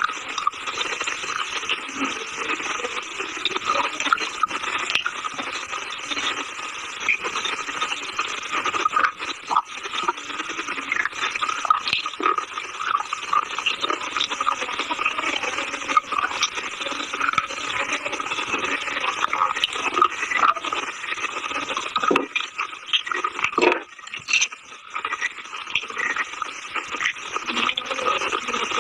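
Close-miked chewing and crunching of chalk or baked clay, a dense, continuous crunch broken by many small cracks.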